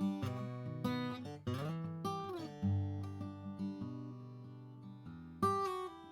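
Collings C100 acoustic guitar, Sitka spruce top with mahogany back and sides, played with chords left to ring, a short rising run of notes about a second and a half in, and a strong strum near the end.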